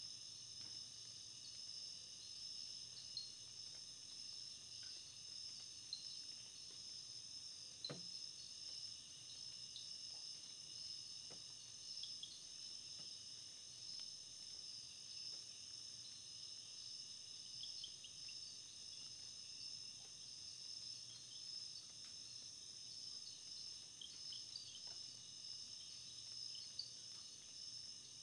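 Faint, steady high-pitched trilling of insects, like a background chorus of crickets, with small chirps on top. A single soft tap about eight seconds in.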